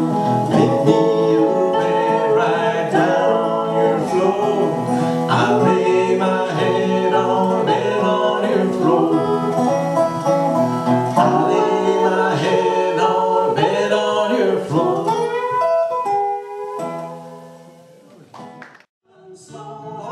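Live folk song on a resonator guitar with singing; the music stops about sixteen seconds in, leaving a short lull before a few plucks near the end.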